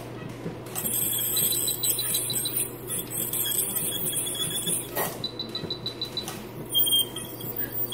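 Steady high hiss over a low electrical hum from running veterinary dental equipment, with a quick string of short high beeps about five seconds in.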